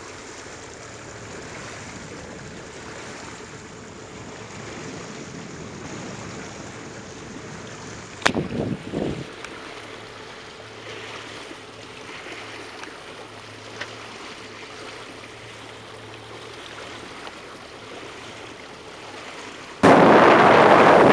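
Quiet water lapping around a slow-moving speedboat on a calm sea, with a sharp knock and a few low thumps about eight seconds in. Near the end, loud wind noise on the microphone suddenly takes over.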